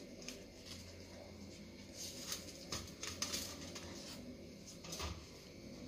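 Heat-softened banana leaf rustling and crackling softly as it is folded over by hand, busiest in the middle, with a soft knock about five seconds in.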